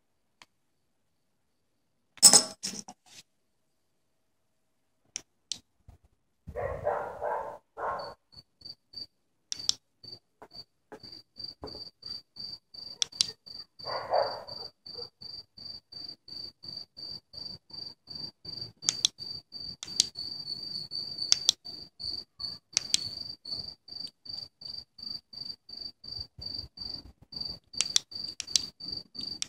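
A cricket chirping: a high, evenly pulsed chirp that starts about a quarter of the way in and keeps going, with scattered sharp clicks and a few brief rustling noises.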